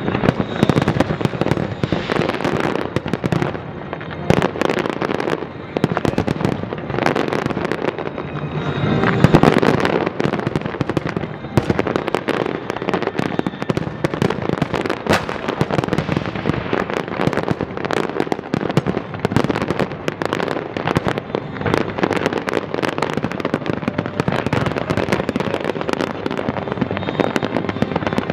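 Aerial fireworks display: a dense, unbroken barrage of shell bursts and crackle, swelling to its loudest about nine seconds in.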